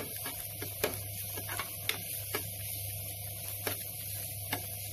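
Steel spoon stirring frying onion, garlic and green chilli in a non-stick pan, its edge clicking and scraping against the pan at irregular moments over a steady hum and hiss.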